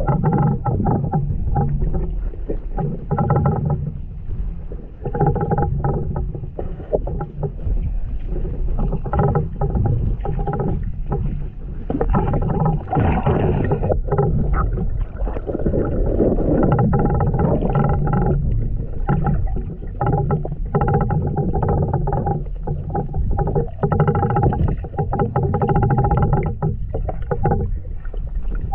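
Muffled underwater sound picked up by a camera held beneath a river's surface while swimming: a continuous low rumble of moving water, with hum-like tones that come and go every second or two.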